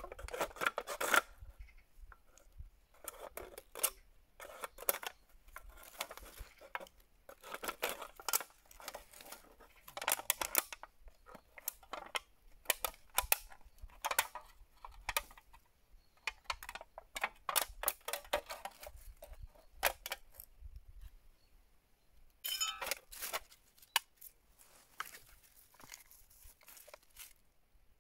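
A knife cutting and sawing through a thin aluminium drink can, in many short, irregular scraping and crinkling bursts as the soft metal tears. About three-quarters of the way through there is a brighter burst with a metallic ring.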